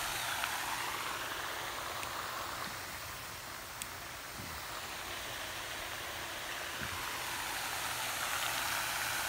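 Pond aerator fountain splashing: a steady hiss of falling spray. It dips a little in the middle and rises again near the end.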